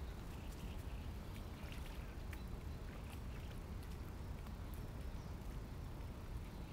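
Light splashing of lake water as a hand dips and moves in it at the water's edge, over a steady low rumble.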